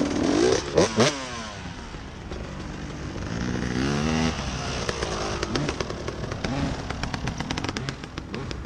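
Dirt bike engine revving as it rides away up the track, its pitch climbing in a pull about three to four seconds in. Two sharp clatters come about a second in, and a run of rapid ticks follows in the second half.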